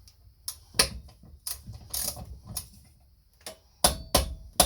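Irregular sharp clicks and knocks, about nine spread unevenly, from a ratchet, socket and other hand tools being worked and handled on a bolt; there is no motor whine.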